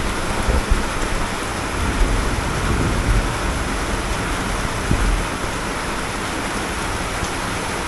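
Heavy monsoon rain pouring down in a steady loud hiss, with a few low rumbles, the strongest about five seconds in.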